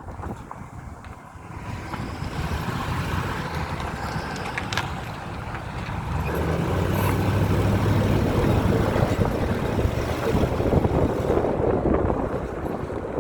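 2001 Ford F-150 running, with a steady low drone that comes in about six seconds in and is loudest near the middle.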